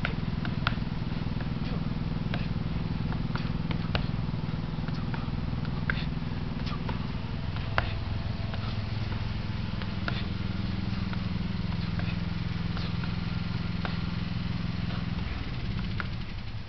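A steady low engine drone that shifts in pitch about ten seconds in and fades near the end, with scattered light knocks and clicks over it.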